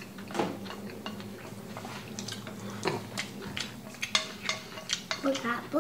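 Wooden chopsticks stirring noodles in a stainless steel bowl, with scattered light clicks and scrapes of the chopsticks against the metal.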